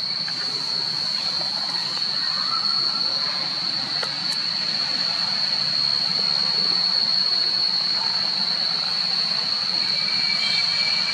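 Steady high-pitched insect drone over a constant rushing background noise.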